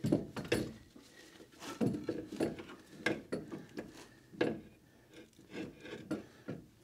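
Irregular knocks, clunks and scrapes of metal as a replacement magnetic ride strut and coil spring assembly is worked up into its mount in the front wheel well.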